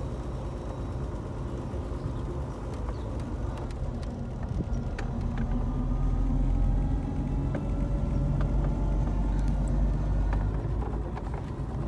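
An old car's engine and road rumble heard from inside the cabin while it drives. About a third of the way in the engine note starts rising slowly as the car picks up speed, with a few small rattles and clicks.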